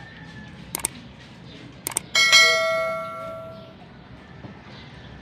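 A few sharp clicks, then a metal object struck once about two seconds in, ringing with several clear tones that die away over about a second and a half.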